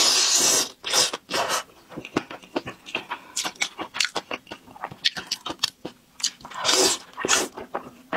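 Close-miked eating of thick noodles in spicy sauce: a loud slurp right at the start and another about seven seconds in, with wet chewing and lip smacks clicking in between.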